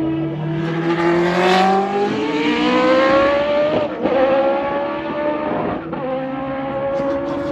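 Historic Formula 2 single-seater race cars accelerating past on track. Their engine notes rise in pitch and drop back at each upshift, several times, with more than one car heard at once.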